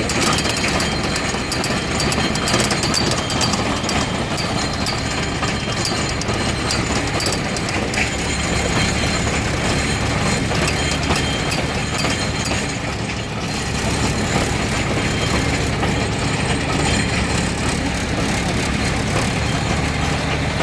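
John Deere 5210 tractor's three-cylinder diesel engine running steadily under load while drilling in soil, with a continuous light clatter and rattle from the machinery.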